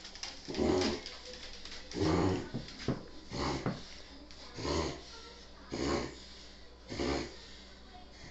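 Dog reverse sneezing: a series of harsh, forceful breaths pulled in through the nose, six in all, about one a second.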